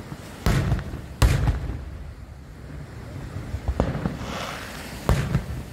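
Aerial firework shells bursting: four sharp bangs, each with a short rumbling tail, the loudest a little over a second in. A brief hiss follows the third bang.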